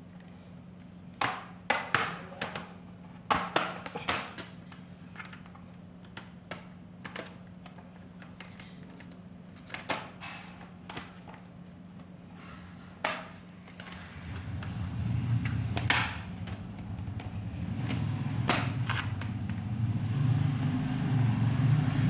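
Plastic bottom cover of a laptop being pried off its case: a series of sharp clicks and snaps as the clips let go, then, about two-thirds of the way through, a louder low rubbing and scraping as the panel is worked loose.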